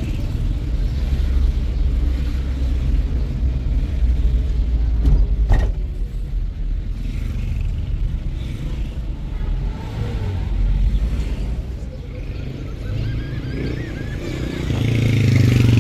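Steady low rumble of a moving vehicle, with one sharp knock about five and a half seconds in and the sound growing louder near the end.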